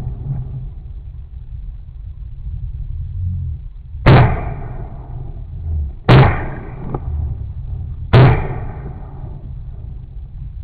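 Three shotgun shots about two seconds apart, each followed by a long fading echo, over a low rumble of wind.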